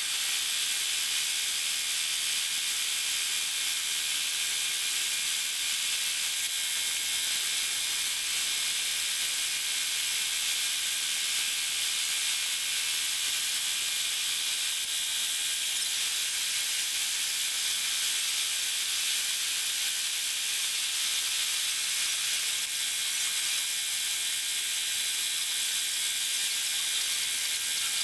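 Multi-needle embroidery machine stitching. Sped up eight times, the rapid needle strokes blur into a steady, high hiss.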